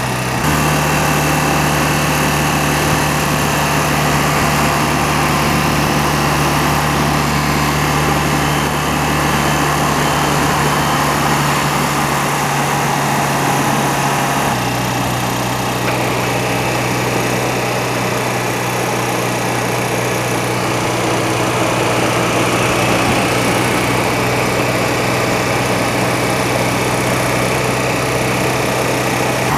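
Motorcycle engine running steadily at motorway cruising speed, heard under steady wind and road noise; the engine note shifts slightly about halfway through.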